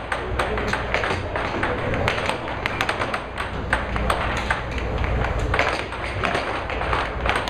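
Air hockey puck and mallets in a fast rally: sharp, irregular clacks, several a second, as the plastic puck is struck by the mallets and bangs off the table's rails.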